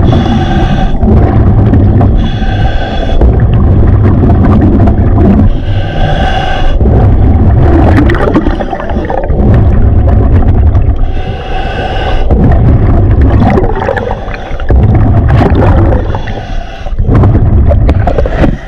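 Underwater sound of a scuba diver in a strong river current: a loud, low rushing rumble of the current buffeting the camera. Every few seconds it is joined by a humming whine of about a second from the diver's regulator as he breathes.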